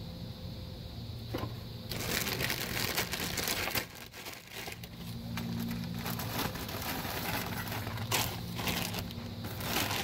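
Paper towel crumpling and rubbing against the rear drum brake backing plate as it is wiped clean. It starts about two seconds in and eases off briefly around four seconds.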